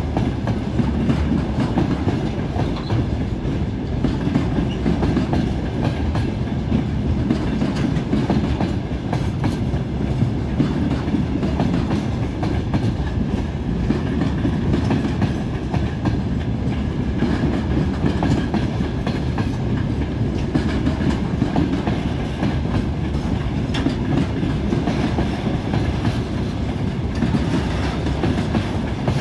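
Freight train's loaded container flat wagons rolling past: a steady rumble of wheels on rail, with frequent short clicks from the wheels over the track.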